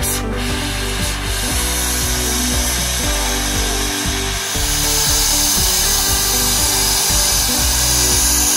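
Background music with a steady beat over the continuous hiss of a gas torch flame brazing a filler rod onto a small blade; the hiss grows louder about halfway through.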